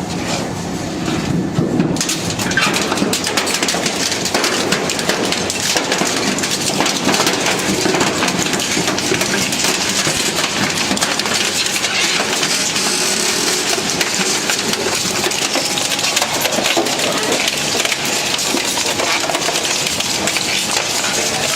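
A crushing or shredding machine breaking up material: a dense, continuous crunching and crackling that keeps up steadily.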